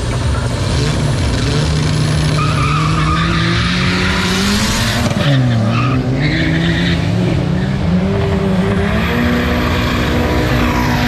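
Two cars in a side-by-side drag-race run, accelerating hard with engines revving up through the gears and tyres squealing. The engine pitch climbs, drops about five seconds in, then climbs again.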